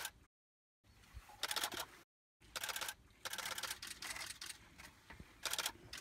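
Camera shutter firing in rapid bursts of continuous shooting: several runs of fast clicks, each lasting a fraction of a second to about a second, separated by short pauses.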